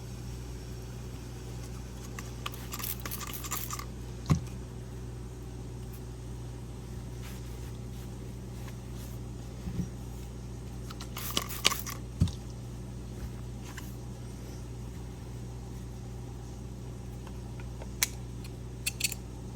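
A few small clicks and knocks of scissor parts being handled and put back together, over a steady low machine hum.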